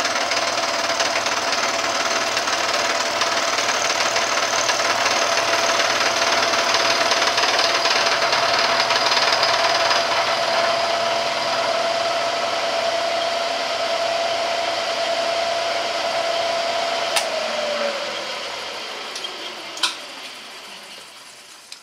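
Bridgeport milling machine's end mill climb-milling a slot in a solid aluminum block at 700 rpm: a steady whir with one constant tone and a hiss of cutting. About 18 seconds in the tone dips and the sound fades as the spindle winds down, with two sharp clicks near the end.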